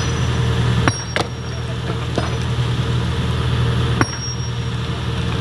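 Sumitomo hydraulic excavator's diesel engine running steadily, with four sharp metallic clanks that ring briefly, from the bucket and its linkage working against rock.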